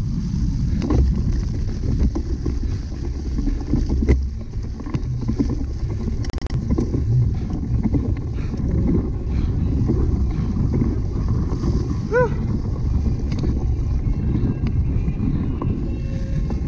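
Wind buffeting the microphone over the rumble and rattle of a cyclocross bike ridden hard over rough ground, with scattered knocks and clicks from the bike. A brief high chirp about twelve seconds in.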